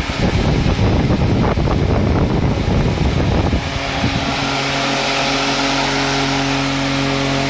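Large caged high-speed pedestal fan running, driven by its own dedicated fan motor. Its strong airstream buffets the microphone with a gusty rumble until about three and a half seconds in, after which the motor's steady hum and the rush of air are heard.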